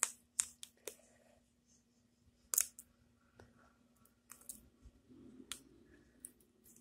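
A thin tacky replacement grip being wrapped by hand around a tennis racquet handle: a few sharp clicks, the loudest right at the start and about two and a half seconds in, then lighter ticks and faint rustling as the strip is pulled and pressed onto the handle.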